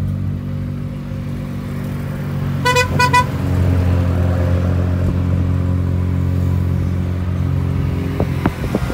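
A car horn beeps twice in quick succession, about two and a half seconds in, over the steady low hum of a car driving.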